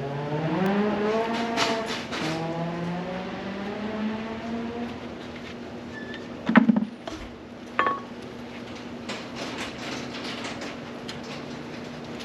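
An engine's pitch rises over about the first second and then holds steady as it keeps running. Two sharp knocks come near the middle, a second or so apart.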